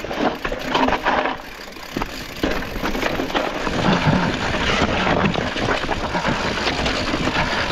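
Mountain bike rolling down a rocky trail with loose stones: the tyres crunch over stone and the bike rattles with a steady run of clicks and knocks, getting louder after about two and a half seconds.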